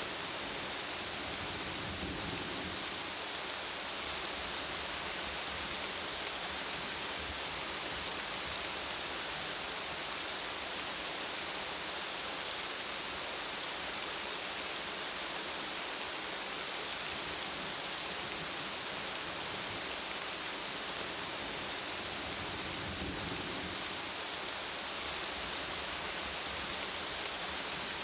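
Steady heavy rain, an even hiss without a break. A faint low rumble swells briefly about two seconds in and again near the end.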